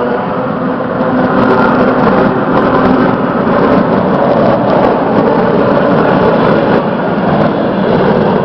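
A train passing close by: a loud, steady rushing rumble.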